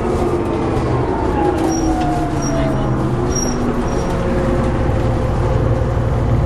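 MCW Metrobus double-decker's Gardner diesel engine running steadily, with a whine that falls in pitch over a few seconds, starting about a second in.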